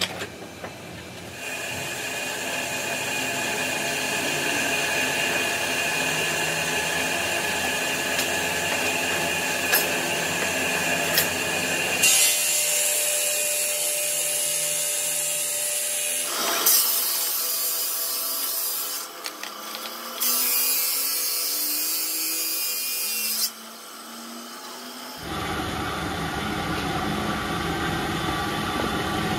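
Stone-cutting saw machinery running steadily with a grinding whine, its sound changing abruptly several times. A stepped rising tone comes in about halfway through.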